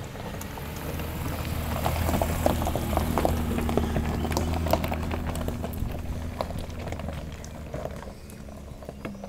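Mitsubishi Pajero SUV driving slowly past on a loose-stone dirt road: a low engine hum under the crunch and crackle of stones under the tyres. It is loudest as the vehicle passes, then fades as it drives off.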